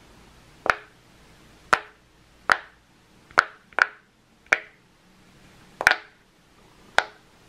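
Bubbles of a silicone Pop It fidget toy pushed through one at a time from the louder side: eight sharp pops, each with a short ring, coming irregularly about a second apart.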